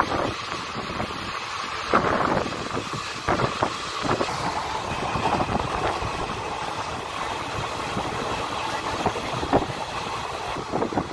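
Indian Railways passenger coach running at speed, heard from an open door: the steady noise of wheels on the track and rushing air, with a few sharp clicks from the wheels now and then.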